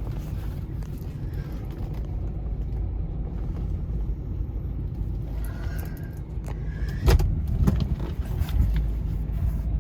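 Ford Expedition's 4.6 L V8 running as the truck is moved, heard from inside the cab as a steady low rumble, with two sharp knocks about seven seconds in.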